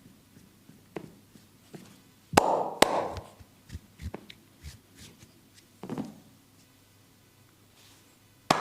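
Sharp slaps and taps of a masseur's hands on a client's body: two loud strikes close together a little over two seconds in, a softer one near six seconds and another sharp one near the end, with light rubbing of hands on skin between them.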